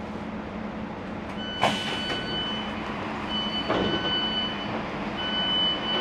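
Train carriage's steady hum with a sharp clunk as the portable boarding ramp is handled at the doorway, then a high electronic door warning tone beeping in long pulses three times.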